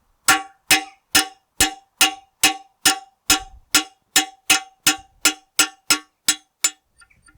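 About seventeen steady hammer blows on steel, a little over two a second, each ringing briefly with a clear metallic tone, driving a dowel out of a tractor's cast-iron rear axle casing. The blows stop shortly before the end.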